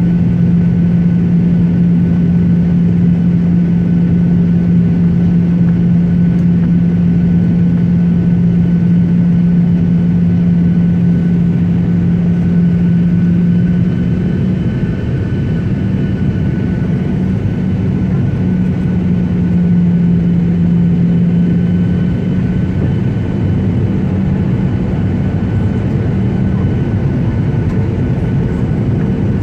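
Airliner cabin noise: the engines run steadily with a loud low hum and a fainter high whine, and about halfway through the hum wavers and shifts slightly in pitch as the engine setting changes.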